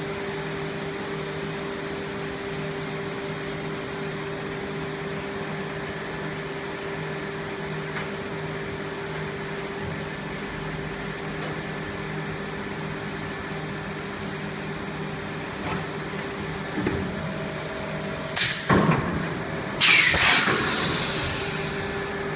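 HDPE bottle extrusion blow moulding machine running with a steady hum and several steady tones. Near the end there is a sharp clunk, and about a second and a half later a short, loud rush of noise as the mould opens.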